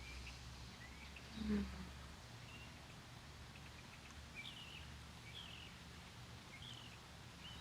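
Small birds chirping faintly: short, high chirps every second or so over a steady low background rumble. A brief low sound about a second and a half in is the loudest moment.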